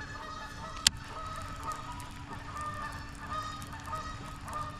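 Many short honking calls of waterbirds, repeated and overlapping, with one sharp click about a second in.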